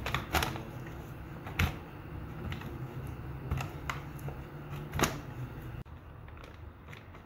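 Frozen ginger-garlic paste cubes handled in a plastic zip-lock bag: irregular sharp clicks of the cubes knocking together and against the plastic, with light crinkling of the bag.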